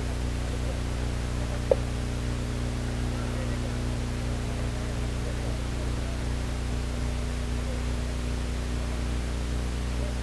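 Steady electrical hum with several low tones under a constant hiss, and one short sharp click a little under two seconds in.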